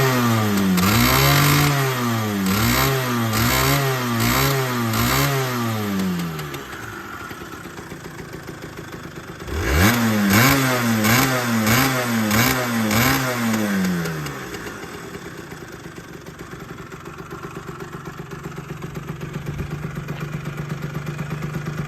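Honda NS-1 (AC12) 50cc liquid-cooled two-stroke single, running with no abnormal noise: the throttle is blipped about seven times in quick succession, the engine drops back to idle, then is blipped again five or six times about ten seconds in before settling to a steady idle.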